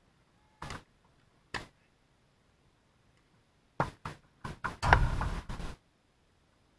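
Tennis ball knocking off rackets and court during a singles rally: two sharp knocks about a second apart, then a quick run of knocks around the middle, followed by a louder rushing noise lasting under a second.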